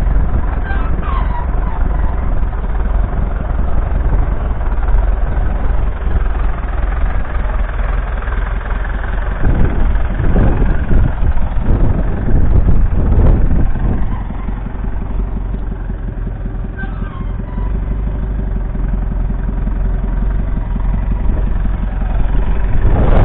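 1958 McCormick International B275's 2.3-litre four-cylinder diesel engine running steadily as the tractor works with a two-furrow mounted plough. The sound swells briefly a few times before the middle and then drops back a little.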